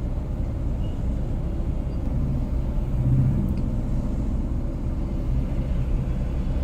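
Steady low rumble of a vehicle on the move: engine and road noise, swelling slightly about three seconds in.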